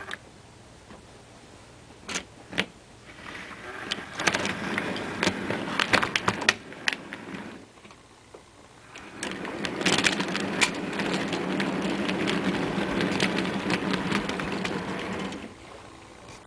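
Model EWS Class 66 diesel locomotive and its wagons running along the model track: a low motor hum with wheels rattling and clicking over the rails. It opens with two clicks, eases off for a moment about eight seconds in, then runs steadily and fades near the end.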